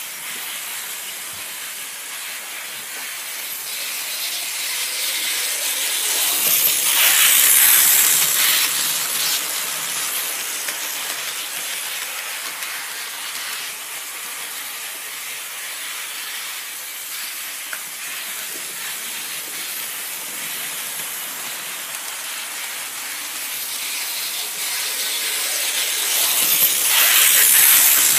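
Märklin model train running on its track: a steady hissing rush of the wheels and motor. The sound swells as the train comes close about seven seconds in and again near the end, when its coaches pass right by.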